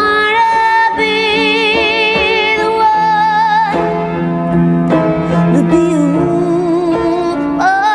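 A woman singing long held notes with vibrato to her own upright piano accompaniment. One sustained note runs for about three seconds near the start, a lower one follows later, and a low piano note is held under the second half.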